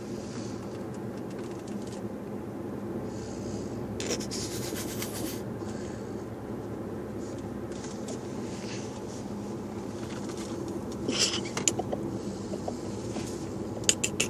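A person snoring with a steady rasp. A few sharp clicks come about eleven seconds in and again near the end.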